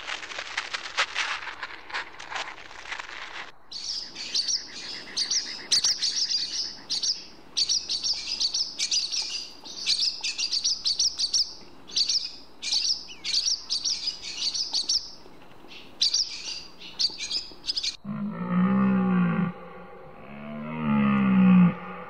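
Rapid crackling snuffles from an aardvark, then a wagtail calling again and again in short high chirps, then a Tugay (Bukhara) red deer stag roaring in two deep bellows, the second louder.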